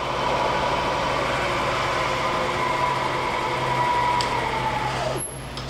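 Lagun FTV-4E milling machine head running with the spindle in low range: a steady motor hum and whine. Near the end the whine sags in pitch and the sound drops away sharply as the spindle brake is applied.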